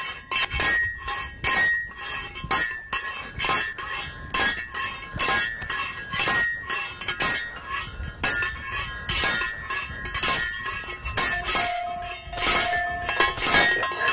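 Steel slide hammer (post driver) repeatedly striking down on a pole and dolly, driving a soil-monitoring access tube into clay. Each blow is a sharp metallic clang that rings on briefly, roughly one or two blows a second.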